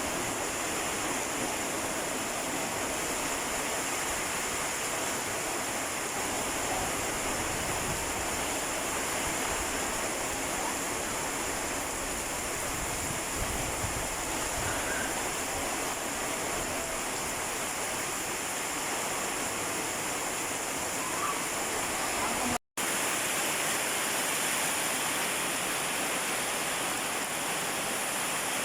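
Heavy rain falling in a steady, even rush, with a split-second dropout about three-quarters of the way through.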